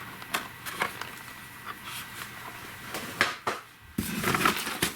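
Firework packages being handled and set down: scattered light knocks and taps, with a stretch of rustling about four seconds in.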